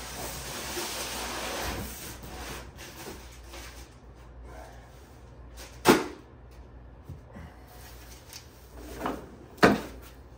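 A cardboard shipping box being handled: a scraping rustle of cardboard for the first couple of seconds, then a loud sharp knock about six seconds in and another near the end, with a softer one just before it.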